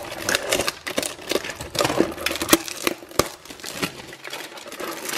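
Cardboard chocolate box being worked open by hand: irregular clicks, taps and scraping with some crinkling.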